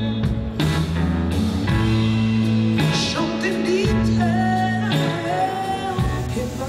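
Band music with electric guitars, a steady bass line and a singer carrying the melody.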